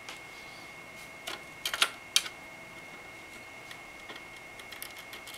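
Small clicks and taps of cooler mounting hardware handled by hand: a non-conductive washer and a standoff being fitted onto a backplate bolt through the motherboard. A cluster of sharper clicks comes between about one and two seconds in, and lighter ticks follow near the end, over a faint steady high-pitched tone.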